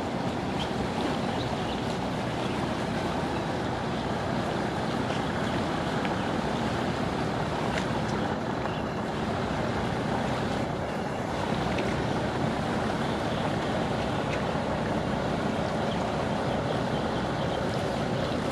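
Steady drone of a boat's engine under a wash of water and wind, with no change in level.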